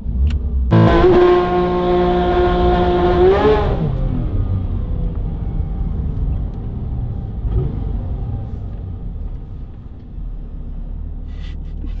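Porsche 911 GT3 RS naturally aspirated flat-six running through an aftermarket valved exhaust. It comes in suddenly and holds one steady high note for about two and a half seconds, then rises briefly and drops away as the car pulls off hard, and runs on at a lower note.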